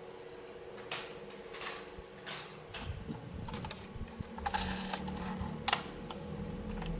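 Hard plastic toy pieces being handled: a string of irregular clicks and taps, a short rustle about two-thirds in, and the sharpest click just before the end.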